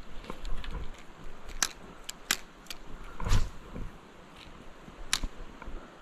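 Handling noise from a spinning rod and reel: scattered sharp clicks, with a louder dull knock about three seconds in.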